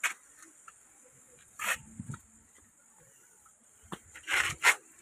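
A steady high-pitched chorus of insects, with several short rustling noises over it, the loudest two close together near the end.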